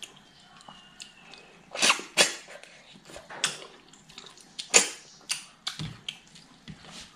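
Close-up eating noises as cooked snails are sucked out of their shells: several short, loud slurps spread through, with quieter mouth sounds in between.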